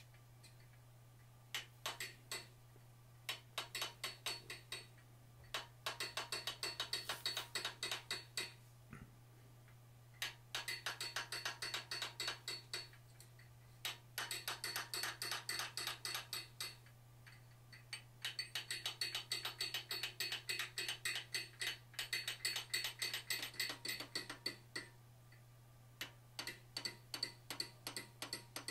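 Hammer striking a hand-held steel forging tool set against hot iron: light detailing blows in quick runs of several a second, each with a short metallic ring, with pauses between the runs. A steady low hum runs underneath.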